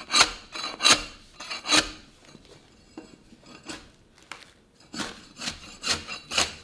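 Long-handled debarking spade scraping bark off an oak trunk in repeated quick strokes, roughly one or two a second. The strokes go softer for a couple of seconds in the middle, then come loud again from about five seconds in.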